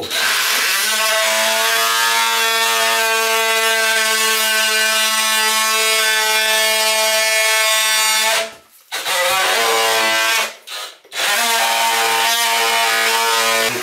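Handheld power tool cutting a notch into the wall at the end of a window reveal so a window board can be let in. The tool runs with a steady whine for about eight seconds, stops, gives a short run of about a second, then runs again for about three seconds.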